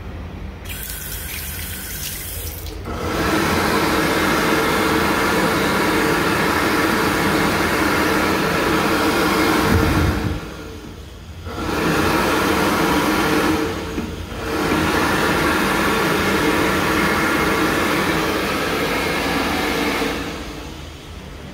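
Bobrick B-750 AirCraft hand dryer blowing with a steady rush of air over a motor hum, starting about three seconds in after a short burst of running water from a sensor faucet. It cuts out near ten seconds, starts again after a second or so, dips briefly, then runs on and winds down near the end.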